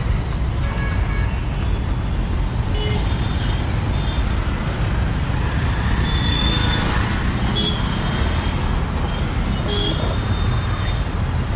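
Busy road traffic: engines of cars, auto-rickshaws and motorbikes running and passing in a steady rumble, with several short horn beeps.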